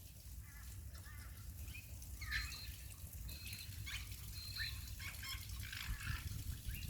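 Baby grey parrots giving soft, scattered chirps and squeaks, some with small rising or falling glides, over a low steady rumble.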